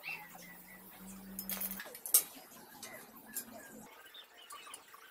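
Metal clinks from tools and the rusty cast-iron treadle stand of an antique sewing machine as it is taken apart, with one loud clank about two seconds in.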